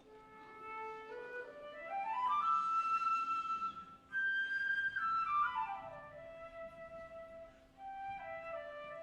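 A flute playing a quick run of notes climbing to a long high note, then a falling run back down to a held lower note, followed by a few shorter notes.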